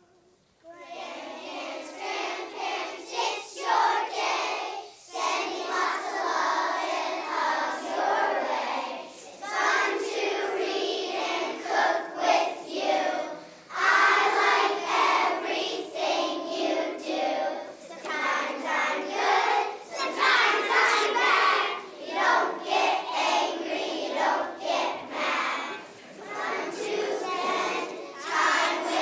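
A large choir of young children singing a song together, starting about half a second in.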